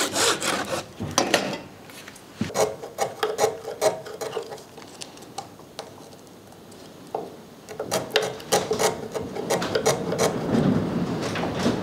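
A few hand-saw strokes through a thin wooden strip at the start, then a chisel paring the angled end of a kumiko strip held in a wooden angle jig: short scraping shaving strokes in clusters, with a quieter spell in the middle.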